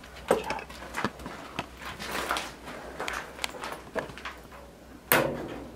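Footsteps and scuffs on a floor littered with plaster debris: irregular short knocks and scrapes, with a louder thump about five seconds in.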